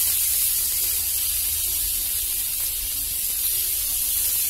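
Whole pointed gourds (potol) sizzling in hot oil in a frying pan, a steady high hiss.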